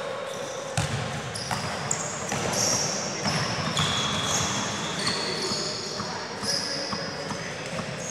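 Sneakers squeaking on an indoor futsal court as players run and turn: many short, high squeaks. A thud of the ball comes about a second in.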